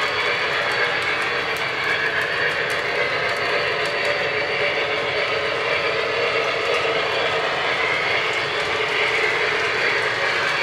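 Lionel O-gauge model freight train running at speed: a steady rumble and rattle of wheels on three-rail track, with faint clicking.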